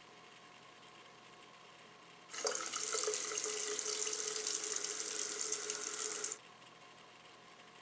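Restroom sink tap running onto hands for about four seconds, a hiss of water with a steady tone under it, switching on about two seconds in and cutting off sharply.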